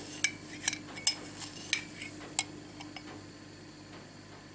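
Metal teaspoon clinking against a cut-glass jar while scooping loose black tea, about six sharp ringing clinks over the first two and a half seconds, then quieter. A faint steady hum runs underneath.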